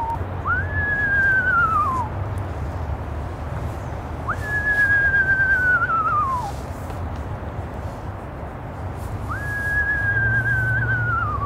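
Human whistled imitation of an eastern screech owl's descending whinny, given three times a few seconds apart. Each call leaps up, holds high, then slides down with a slight waver. It is an owl call meant to draw a reply from screech owls.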